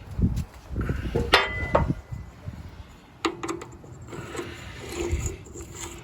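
Clinks and knocks of metal parts and tools being handled, with a brief ringing metallic note about a second and a half in, as parts go back onto a lawn tractor's rear axle.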